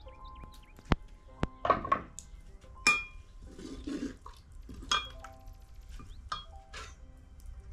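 Metal ladle stirring in a round metal pot of karhi, scraping and knocking against the pot several times, each clink leaving the metal ringing briefly.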